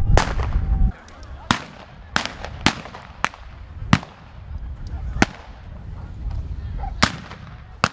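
Scattered blank gunshots from period rifles: about nine sharp cracks at irregular intervals, some close and loud, others farther off. A heavy low rumble fills the first second.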